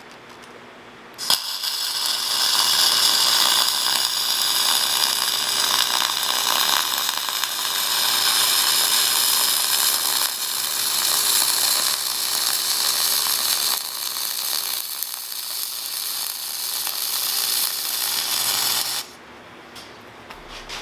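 Flux-core MIG welding arc from a Millermatic 251 running .045 flux-core wire, crackling steadily as a bead is run on steel. It starts about a second in and stops abruptly near the end.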